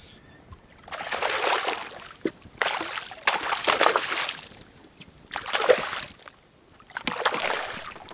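A hooked bonefish splashing at the surface beside the boat, in four separate bursts of splashing with short quiet gaps between them.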